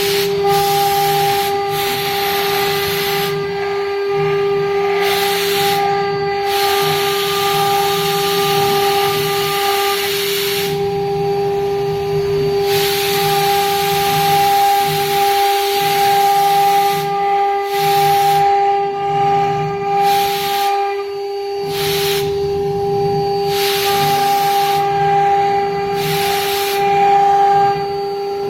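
CNC router spindle running with a steady high whine, while a hissing cutting noise starts and stops every one to several seconds as the machine works through a test job.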